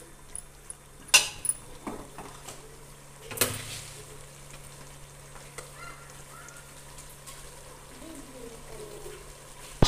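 A metal spatula stirring and scraping mutton masala in an aluminium pot, with a few sharp scrapes and clinks against the pot, the loudest about three and a half seconds in, over a faint sizzle of the meat and spices frying in oil.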